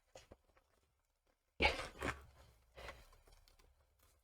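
Packaging being opened by hand: a few light clicks, then about a second and a half in a loud noisy rustle of packaging, followed by two shorter, fading rustles over the next second or so.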